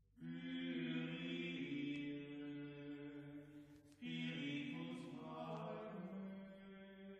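Background music of voices chanting long held notes, in two phrases, the second starting about four seconds in.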